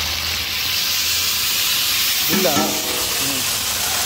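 Freshly chopped tomatoes sizzling in hot oil as they are tipped into a large pot of fried onions: a steady frying hiss.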